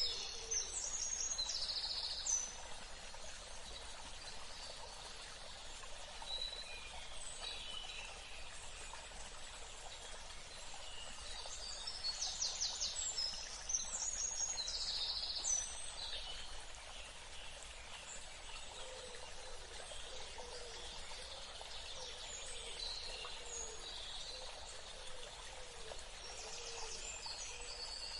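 Songbirds singing over the steady rush of a river. Bursts of rapid trills and short whistles come near the start, about halfway through and near the end, with scattered chirps between.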